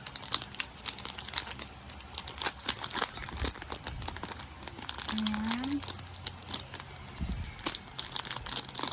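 Packaging crinkling and crackling as it is handled and opened by hand, a dense run of small crackles throughout.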